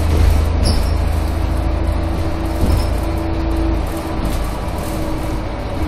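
Van Hool AG280 articulated bus heard from inside its trailer section on the move: a steady deep drone from engine and road with a humming tone over it. There is a single knock from the body about two and a half seconds in.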